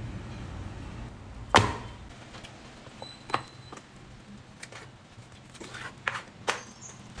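Large kitchen knife chopping through a raw chicken onto a wooden cutting board while it is deboned: a handful of sharp knocks, the loudest about a second and a half in and a quick cluster near the end.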